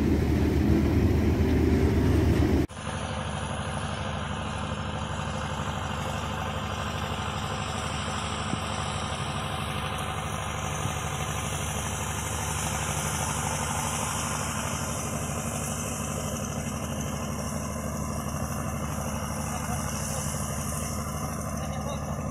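Feed mixer wagon running loud and steady as it unloads mixed feed into the bunk. About two and a half seconds in the sound cuts off abruptly to a quieter, steady engine hum that carries on.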